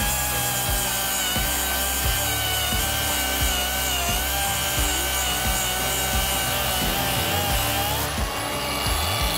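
Angle grinder with an abrasive disc grinding down welds on a steel bar, its whine wavering as the disc bites into the metal. Near the end the whine rises in pitch as the load comes off.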